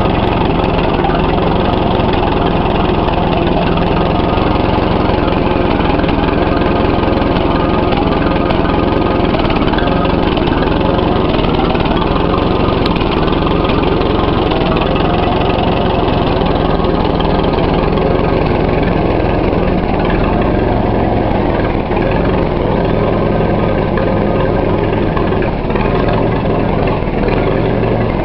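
1944 Fordson Standard N tractor's four-cylinder side-valve engine, converted to coil ignition, running steadily at idle.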